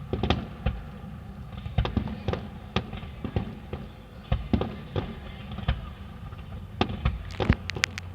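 Fireworks going off in the finale of a display: a rapid, irregular string of bangs and crackles that comes thicker and faster near the end.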